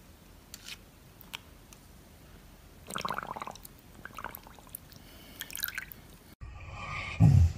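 A puppy pawing and biting at water in a shallow plastic tub: scattered small splashes and drips, with a louder spell of splashing about three seconds in. Near the end another dog, lying asleep, makes a short, loud, low sound.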